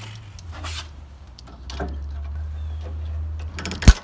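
End-cutting nippers snipping a plastic cable tie: one sharp, loud snap near the end, after a few faint handling clicks over a low rumble.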